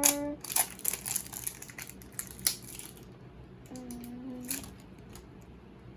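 Plastic toy packaging crinkling and crackling as it is handled and opened, in quick irregular crackles for about the first three seconds. A short hummed tone is heard about four seconds in.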